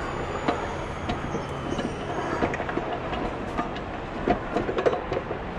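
A steel watertight deck hatch being worked by hand: the metal handwheel and dog latches click and clank in light, irregular knocks, with a quick cluster of them about four and a half seconds in.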